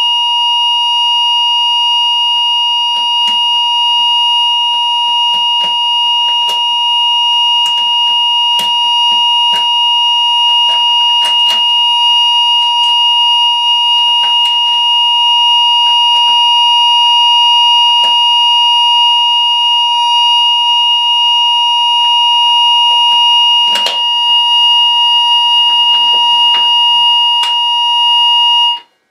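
ESP fire alarm sounders giving a steady continuous tone, set off by breaking the glass on a manual call point. Scattered knocks and clicks sound over it. The tone cuts off suddenly near the end.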